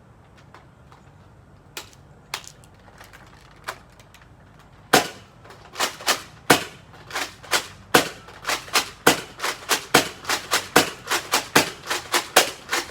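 Nerf Rival Apollo spring-powered foam-ball pistol firing: a few separate clicks, then from about five seconds in a rapid string of sharp pops, about three a second.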